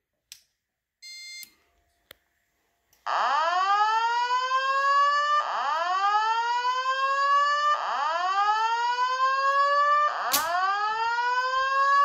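Simplex fire alarm speaker strobe sounding its evacuation tone: four loud rising whoops, each lasting a little over two seconds, the alert tone that comes before the voice evacuation message. A faint click and a short beep come in the first two seconds, before the whoops start.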